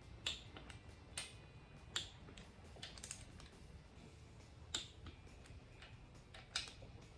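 Click-type torque wrench on LS1 engine bolts, giving about six short, sharp metallic clicks spaced one to two seconds apart as the bolts are brought up to torque.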